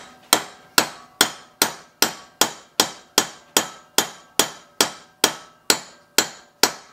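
Hammer striking a drift to tap a liquid-nitrogen-frozen phosphor bronze valve guide into a heated aluminium Ferrari 308 cylinder head: a steady run of light metallic taps, about two and a half a second, each ringing briefly. The hot head and shrunken cold guide make an interference fit, so the guide goes in with gentle taps.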